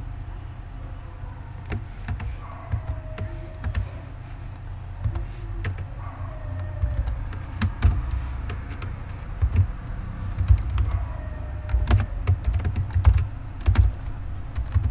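Computer keyboard typing: irregular keystrokes, coming faster in the second half, over a low steady hum.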